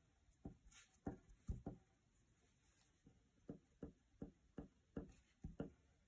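Faint taps of a colored pencil tip dotting onto paper on a table, about a dozen in two quick runs.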